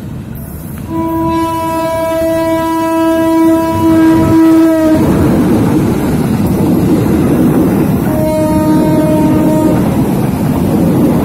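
Diesel locomotive horn sounding one long blast, about four seconds, as the train closes in. Then the locomotive and passenger coaches pass close by with loud wheel and rail noise, and a second, shorter horn blast comes about eight seconds in.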